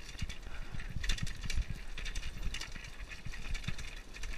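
Trail motorcycle going down a rough dirt descent: a dense run of clicks and rattles from the bike and the ground, with irregular low thumps.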